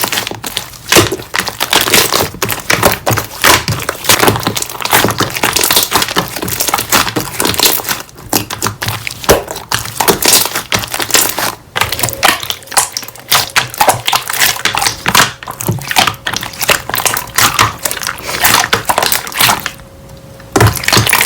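Slime being pressed and squeezed by hand, giving a dense, continuous run of crackling clicks, with a brief pause near the end.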